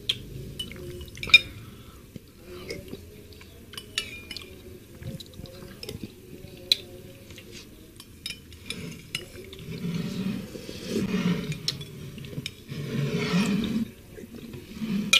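Metal spoon clinking and scraping in a ceramic bowl of soup broth, with several sharp clinks in the first half. In the second half the broth is slurped loudly from the spoon in repeated sips.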